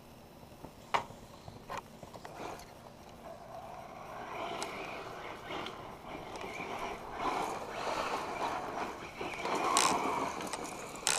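1/8-scale electric RC car with a Castle Sidewinder ESC and 2200 kV brushless motor driving on a gravel driveway: a motor whine over tyre noise that grows louder from about three seconds in and peaks near the end. A couple of sharp clicks come about a second in.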